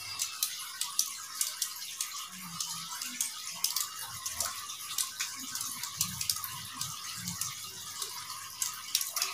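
Steady hiss of background noise with many faint scattered clicks and a few faint low murmurs.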